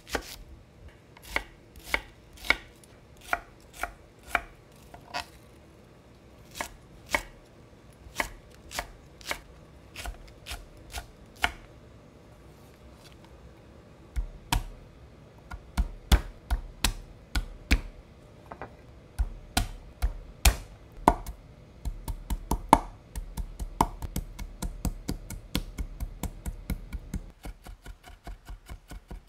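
Kitchen knife chopping on a cutting board: spaced single cuts at first, then after a short pause quicker, steady chopping at about three strokes a second.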